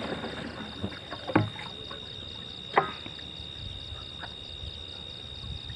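A few short, sharp knocks and clicks of plastic containers being handled while pesticide is mixed into a knapsack sprayer tank, over a steady high chirring of night insects.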